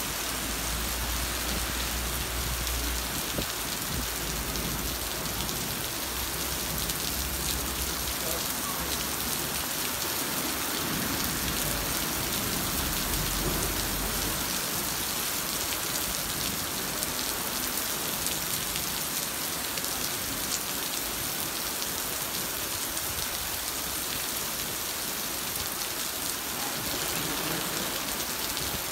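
Heavy rain pouring onto a city street and pavement, a dense steady hiss. A low rumble runs under it for roughly the first half and stops about 14 seconds in.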